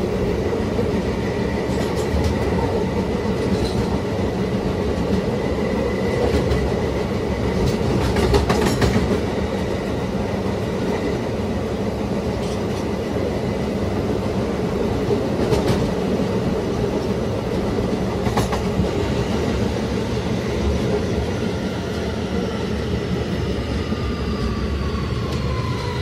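NYC Subway R211 car with Alstom OptONIX IGBT-VVVF propulsion running between stations, heard inside the car: a steady rumble of wheels on rail with a few sharp clicks over rail joints. From about two-thirds of the way in, the traction inverter's whine falls in pitch as the train slows.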